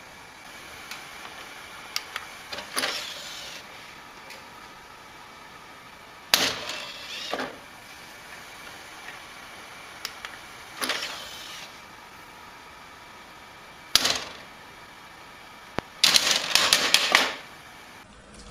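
Desktop computer DVD drive: sharp clicks and the tray mechanism whirring as it ejects and closes, several times, over a steady hum, with a quick run of clicks near the end.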